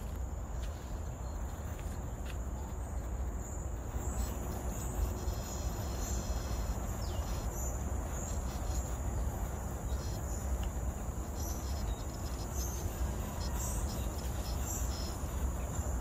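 Steady high-pitched drone of forest insects, over a low steady rumble, with a few short high chirps and faint clicks scattered through it.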